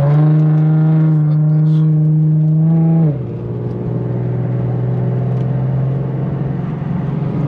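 Infiniti G37's 3.7-litre V6, breathing through Stillen Gen 3 cold air intakes, revs up and holds a steady, loud note for about three seconds. Then the revs drop to a lower, quieter steady drone.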